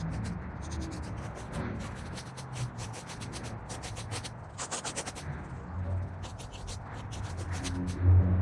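Scraping and rustling of fallen sticks and twigs being cleared across the ground, in runs of short, quick strokes, with a low hum underneath.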